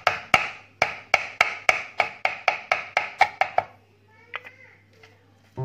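Lemongrass stems being pounded to bruise them: a quick, even run of about a dozen and a half knocks, about four a second, which stops a little past halfway, followed by two lighter knocks. Background music comes in at the very end.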